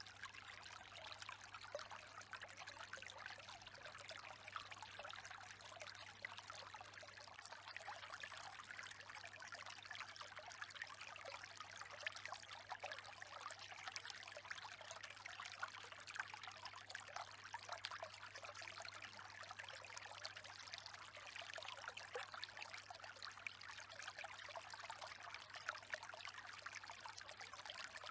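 Faint, steady sound of running water, like a trickling stream, with a low steady hum underneath.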